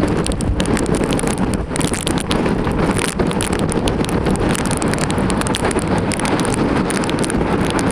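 Strong storm wind and rain buffeting the microphone: a dense, steady low rumble of wind with many small rapid crackles over it.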